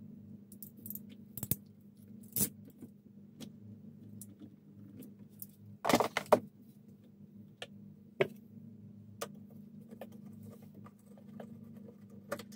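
Cables and their plugs being handled on top of a lithium battery, giving scattered light clicks and knocks with a short burst of them about six seconds in, over a low steady hum.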